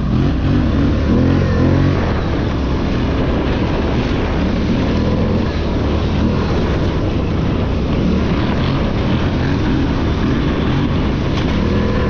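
Polaris Scrambler XP 1000 S ATV's twin-cylinder engine running steadily while riding off-road trails.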